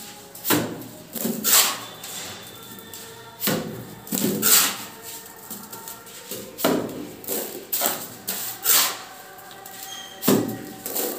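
Cement-sand plaster flung off a mason's trowel onto a wetted brick wall, landing in sharp wet splats about nine times, roughly one a second.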